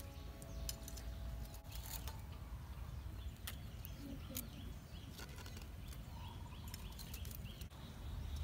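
Metal tongs clicking as grilled prawns are lifted off the grill and laid on a banana leaf, a dozen or so short clicks spread through, over a low steady rumble. Faint bird calls in the second half.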